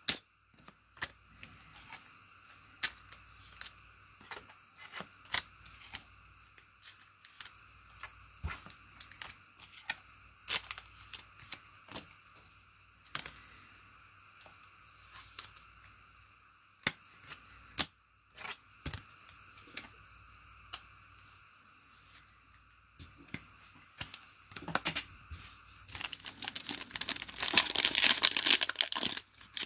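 Trading cards being handled, giving scattered sharp clicks and taps. About 26 seconds in, a louder run of crinkling and tearing as a foil card pack wrapper is ripped open.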